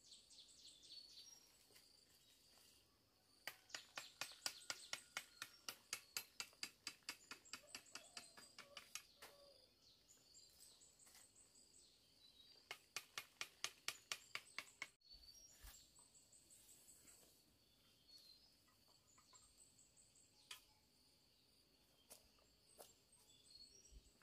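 Wild birds chirping. Twice a rapid, evenly spaced series of sharp chirps, about four to five a second, runs for several seconds and is the loudest sound.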